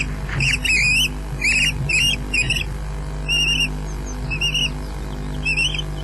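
Ospreys calling at the nest: a series of short, high, whistled chirps, in quick runs at first and then single calls about a second apart. A steady low hum runs underneath.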